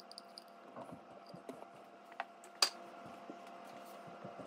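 A few small clicks and knocks of a metal measuring cup handled against a mixing bowl while sourdough discard is poured in. The sharpest knock comes about two and a half seconds in, over a faint steady hum.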